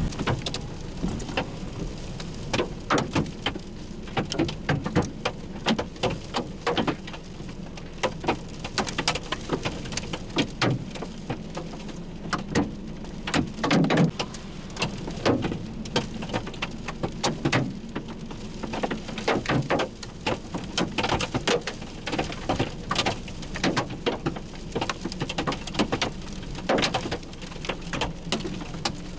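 Heavy rain from a thunderstorm, with large drops striking a hard surface in many irregular sharp hits.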